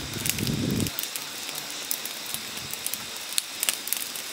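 Wood campfire crackling, with irregular sharp pops from the burning sticks. A low rumble stops about a second in.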